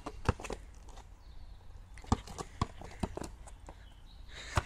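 A basketball bouncing on tarmac: a string of irregular thuds, the loudest about two seconds in and just before the end.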